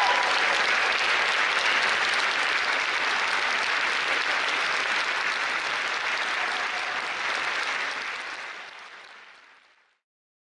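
Audience applauding steadily, fading out near the end into silence.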